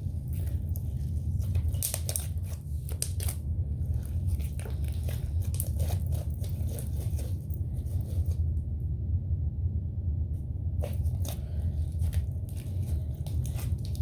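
Homemade slime being squished and stretched by hand, making scattered sticky clicks and crackles over a steady low hum, with a short lull about two-thirds of the way through.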